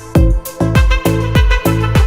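Background electronic music with a steady beat of deep bass-drum hits that drop in pitch.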